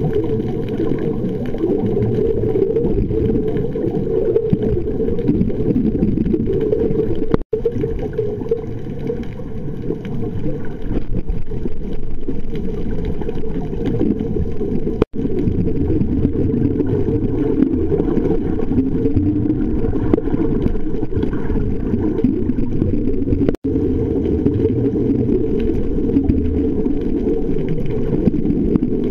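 Steady, muffled low rumble of water as heard underwater. It cuts out for an instant three times.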